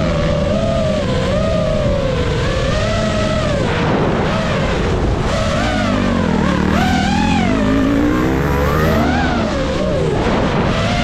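High-revving motors running loudly, a high whine wavering slowly up and down in pitch, then several motors rising and falling in pitch together around the middle.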